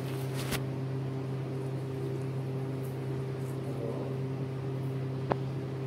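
Steady low machine hum, with a faint click about half a second in and another near the end.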